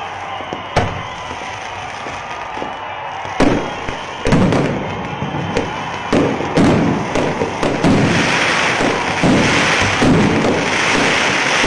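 Fireworks going off: sharp bangs, a few at first and then coming more often from about three seconds in, and from about eight seconds in a continuous crackling from bursting shells.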